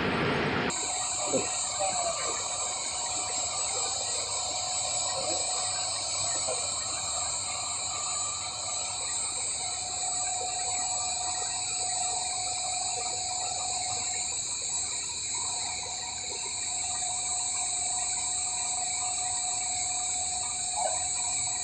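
Steady machine-shop hum with several steady high-pitched whines, like motors and fans running.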